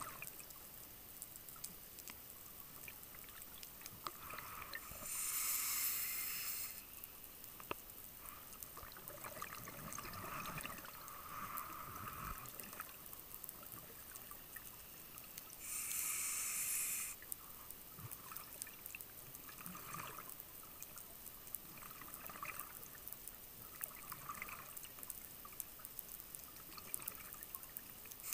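Scuba diver breathing through a regulator underwater: three loud rushes of exhaled bubbles, about ten seconds apart, with softer hissing between them.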